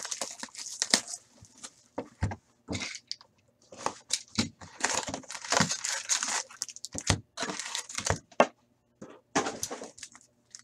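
Hands opening a cardboard hockey card box and handling the foil card packs inside: irregular crinkling and rustling of cardboard and pack wrappers in short bursts.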